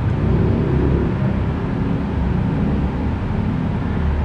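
A steady low rumble of motor-vehicle noise.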